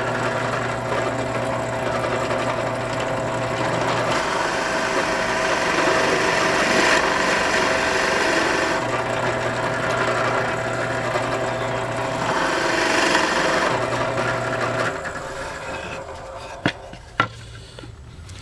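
Benchtop drill press running with a 1-inch Forstner bit boring a shallow flat-bottomed countersink into a wooden board: a steady motor hum under the scraping of the cut. The sound fades about fifteen seconds in, followed by two sharp knocks.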